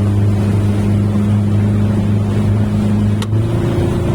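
Motorboat engine running steadily with a deep hum. A sharp click about three seconds in is followed by a change in the engine's note.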